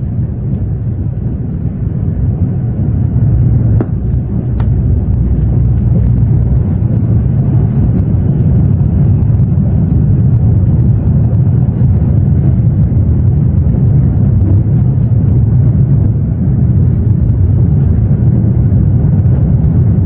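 Steady low running rumble of a 0 Series Shinkansen heard from inside the passenger car, growing louder a couple of seconds in and then holding level.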